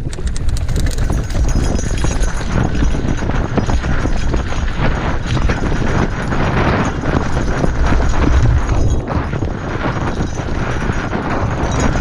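Mountain bike riding fast down a rocky dirt singletrack: the tyres crunch over loose stones and the bike rattles constantly with each bump, with wind buffeting the microphone.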